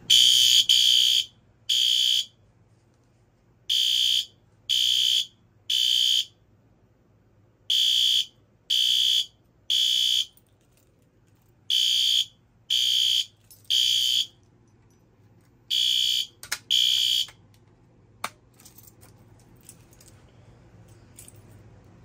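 Fire alarm horn strobe, set off by the manual pull station, sounding the temporal-three evacuation pattern: three loud, high-pitched horn blasts about a second apart, then a pause, repeating. The pattern breaks off in the middle of a group about 17 seconds in, followed by a few clicks.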